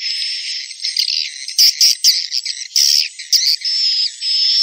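A recorded swiftlet call sound (suara panggil), the lure call played from speakers on swiftlet houses to draw edible-nest swiftlets: a repeating string of high chirping calls, each holding a thin whistle-like tone, with a run of shorter, sharper chirps about the middle.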